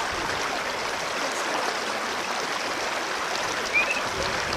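A stream rushing steadily as a continuous wash of water noise, with a brief high squeak near the end.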